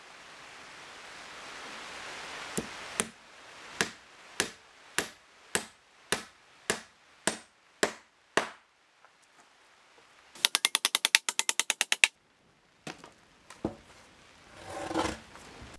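Hand hammer striking timber: a steady run of about eleven blows a little over half a second apart, each with a short ring. After a pause comes a fast, even run of about twenty sharp taps lasting under two seconds, which is the loudest part, then a few more knocks.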